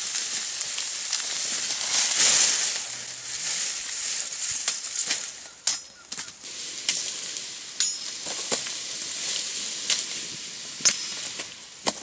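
Dry sugarcane leaves rustling and crackling as a machete works through the cane, with about six sharp chops or snaps in the second half.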